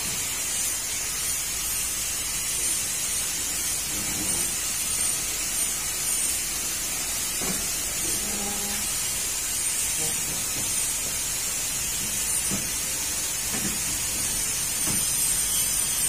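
A steady high-pitched hiss, with a few faint knocks about halfway through and near the end as the painted steel-tube bed frame is handled.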